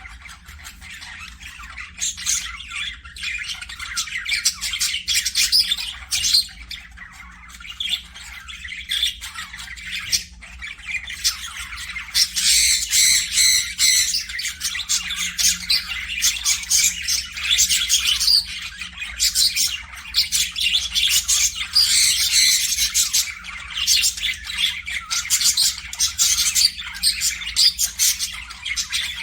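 Pet budgerigars (parakeets) chattering and chirping in quick, dense runs of high calls. It is sparser for the first couple of seconds and busiest from about twelve seconds in.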